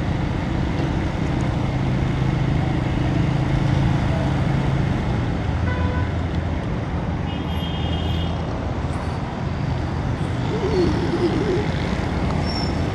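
A motorcycle ridden through city traffic: its engine running steadily under road and traffic noise, with a short high beep a little past the middle.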